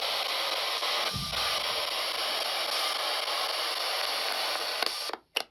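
A spirit box, a radio sweeping rapidly through stations, hissing with steady static. There is a brief low blip about a second in, and the sound cuts out to silence twice, briefly, near the end.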